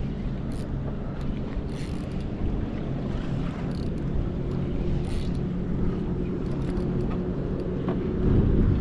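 Boat engine idling with a steady low hum, under wind rumble on the microphone; the rumble grows louder briefly near the end.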